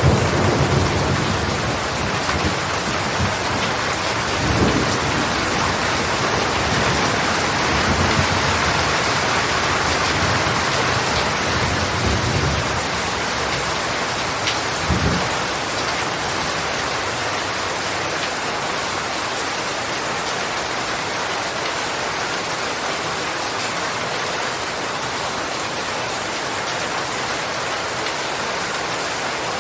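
Steady, heavy rain falling, with low rumbles of distant thunder through the first half; the last rumble comes about fifteen seconds in, after which only the rain goes on.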